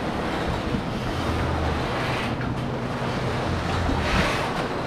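Wind buffeting the microphone over choppy water slapping at the dock, with a low steady engine hum underneath.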